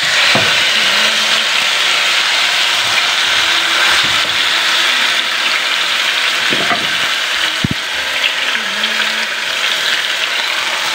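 Whole marinated chicken sizzling in a hot, oil-greased grill pan: a dense, steady frying hiss.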